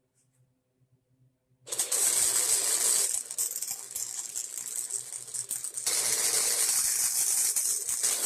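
Electric arc welding on the steel of a snowblower wheel: the arc strikes about two seconds in and crackles and sizzles steadily. It eases for a few seconds in the middle, then grows louder again.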